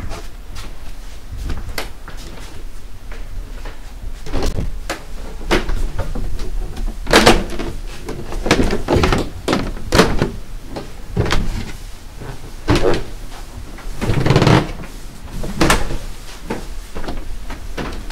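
A series of irregular knocks and thumps, a few of them louder and longer.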